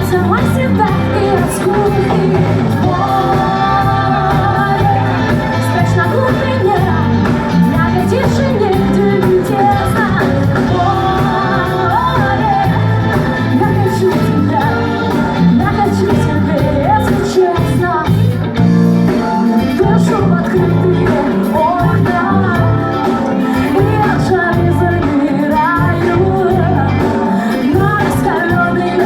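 A pop-rock band playing live, with a singer's voice over a steady bass and drum backing, heard as a room recording in a large hall.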